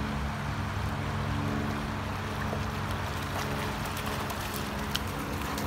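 Background music of sustained low chords, over the steady rush of a shallow creek riffle.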